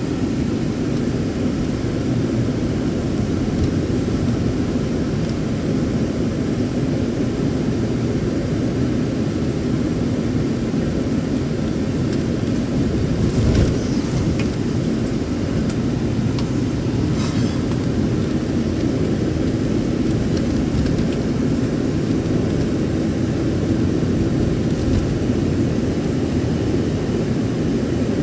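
Steady road and engine rumble of a moving vehicle, heard from inside its cabin, with a single brief thump about halfway through.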